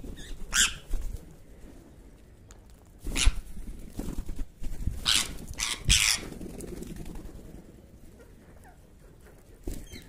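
Short, harsh calls from a flock of house crows and rose-ringed parakeets, five or so loud bursts spread over the first six seconds, then quieter.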